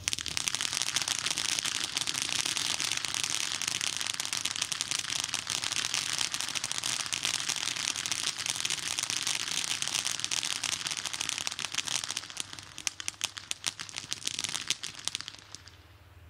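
Ground firework fountain spraying gold sparks: a loud, steady hiss that starts suddenly, breaks up about twelve seconds in into separate sputtering crackles, and dies out near the end.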